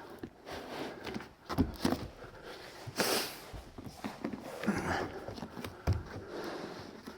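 EPDM rubber roofing membrane being pressed and rolled up against a wall by hand: irregular rustling and soft thumps, with one louder hissing rustle about three seconds in.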